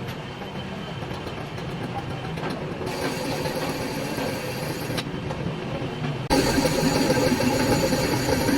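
Lathe running with steady motor and machining noise. The sound changes abruptly a few times and is louder for the last couple of seconds.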